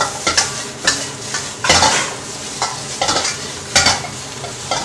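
Metal spatula scraping and knocking against a wok as cucumber slices are stir-fried, in irregular strokes about one or two a second over a steady sizzle of hot oil.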